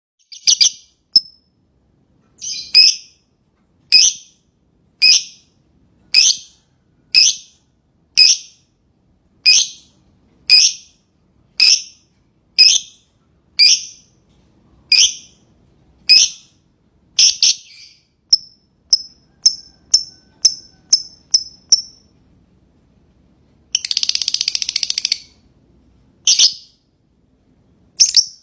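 Lovebird calling: sharp, shrill chirps about one a second, quickening into shorter, faster chirps, then a rapid chattering trill lasting about two seconds before single chirps resume.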